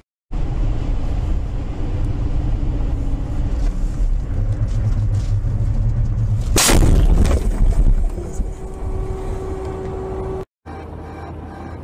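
Steady road and engine rumble inside a dashcam car, then about six and a half seconds in a loud crash: a head-on collision with an oncoming car that was overtaking a lorry. A steady tone sounds for about two seconds after the impact.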